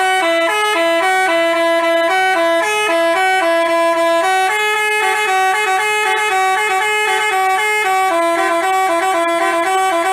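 Multi-tone 'telolet basuri' bus horn playing a tune: clear, loud horn notes sounded two at a time, changing pitch several times a second.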